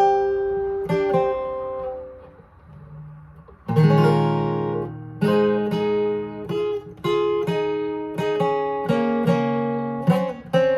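Acoustic guitar music without singing. Picked notes fade away about two seconds in, and fuller strummed chords come in just before four seconds and carry on.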